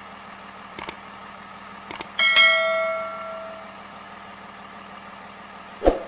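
Steady engine idling hum of a cartoon dump truck sound effect. Over it, two mouse clicks about a second apart, then a loud bell chime that rings out and fades over about a second and a half, as for a subscribe-button notification bell; a short thump near the end.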